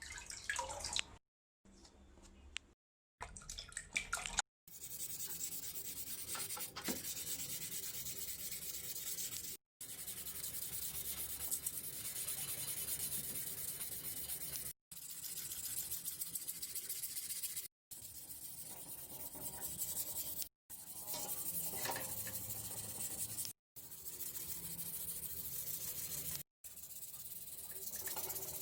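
Sandpaper rubbing on a bicycle frame with a steady scratchy hiss. It comes in several short clips, each broken off by a sudden brief silence.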